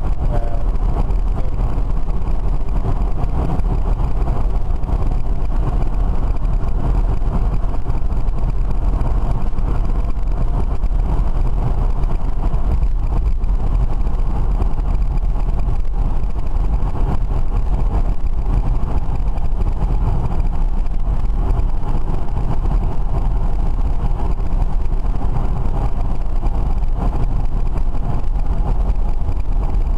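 Cabin noise of a BMW converted to electric drive with a DC forklift motor, cruising at motorway speed: a steady low road rumble with the motor spinning under light load.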